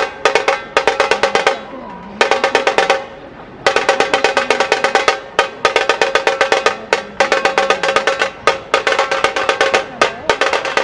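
Dhol tasha drumming: fast rolls of sharp stick strokes on the drums in phrases of a second or more, broken by short pauses.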